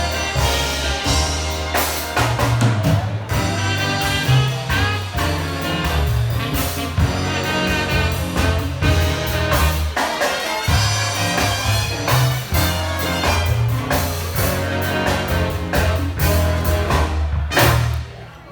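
Big band with brass and drum kit playing the closing bars of a jazz tune over a strong bass line, ending on a loud final hit near the end.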